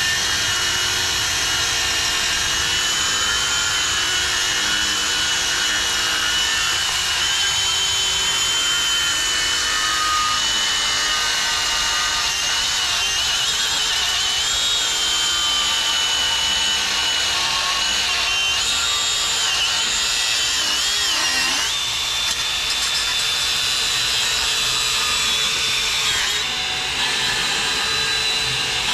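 Angle grinder with a cutoff wheel cutting through the steel shell of a small hermetic pot compressor: a steady, loud, high-pitched whine that wavers and dips in pitch as the wheel bites, shifting in tone near the end.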